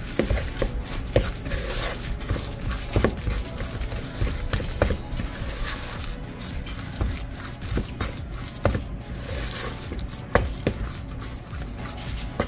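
A spoon stirring thick waffle batter in a bowl, with irregular clicks and knocks against the bowl, about one or two a second.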